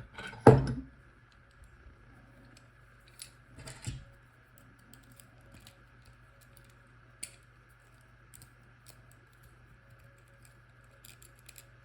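Sparse light metallic clicks and taps from handling an opened Abloy Classic disc-detainer padlock and its pick, with one louder knock about half a second in and a quick run of small clicks near the end.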